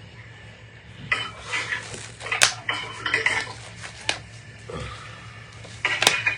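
Small hard objects clinking and clattering as they are handled and moved about, with two sharp clicks about two and a half and six seconds in.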